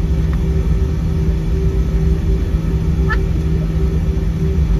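Steady low engine rumble with a constant hum, from a vehicle running. A brief high chirp sounds about three seconds in.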